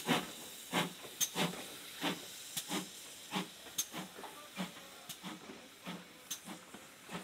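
Steam locomotive working away with its train of coaches: regular exhaust chuffs, about two a second, over a steady hiss, slowly growing fainter.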